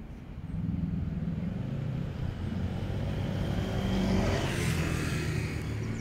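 A motor vehicle passing nearby: a low engine rumble comes up about half a second in, and a broader tyre-and-engine hiss swells to its loudest around four and a half seconds in, then eases off.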